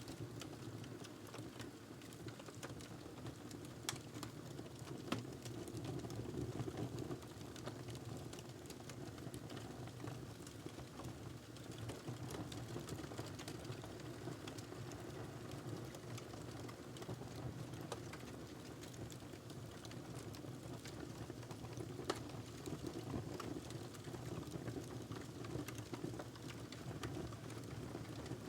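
Wood fire burning in a fireplace: a steady low rumble of the flames with continual soft crackling and a few sharper pops, the clearest about four, five and twenty-two seconds in.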